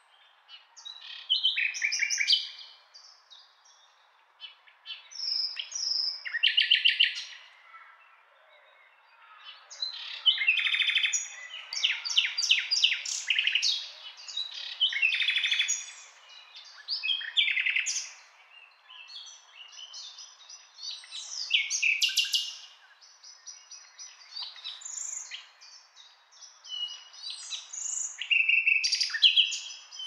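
Nightingale singing: a run of varied phrases of rapid repeated notes, trills and whistles, separated by short pauses.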